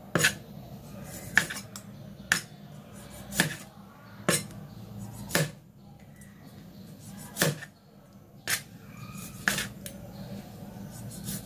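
Large kitchen knife halving cherry tomatoes on a plastic cutting board: a sharp knock of the blade on the board about once a second, with a short pause about midway.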